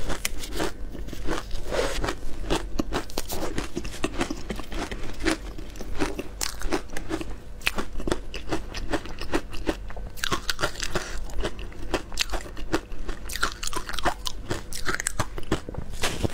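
Close-miked crunching and chewing of frozen shaved ice coated in matcha, a dense, unbroken run of sharp cracks and crunches.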